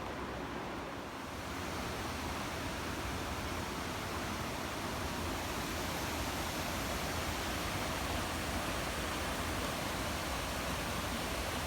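Steady rushing of a waterfall, an even wash of water noise that swells a little about a second and a half in and then holds.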